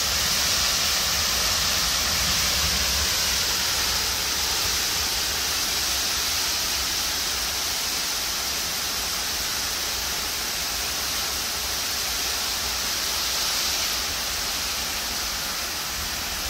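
Heavy rain pouring down in a steady, even hiss, lashing hard.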